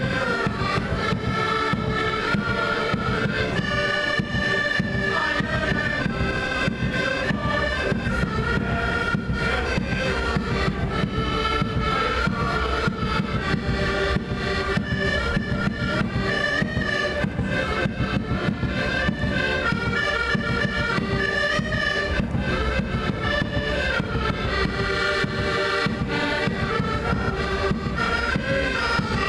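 Traditional Portuguese street band playing a melody on reed instruments over a steady drum beat.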